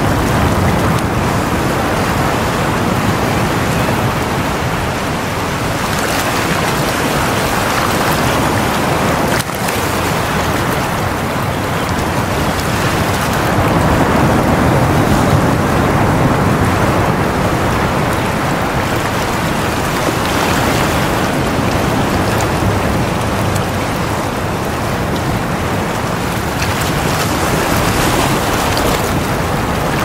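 Sea waves washing in against the shore in a continuous rushing surf, the sound swelling and easing gently as each wave comes in and drains away.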